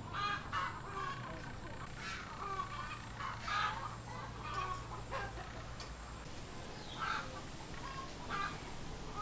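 Chickens clucking, a scattered run of short calls.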